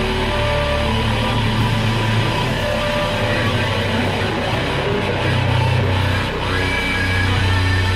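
Background rock music with guitar, steady throughout.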